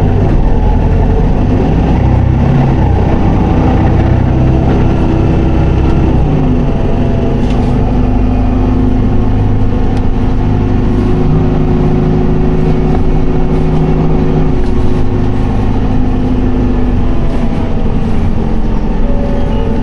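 Isuzu Erga city bus (2PG-LV290N3) under way, its four-cylinder diesel engine running held in fourth gear in POWER mode. The engine's tones drop in pitch about six seconds in, then run steadily at a lower, even pitch.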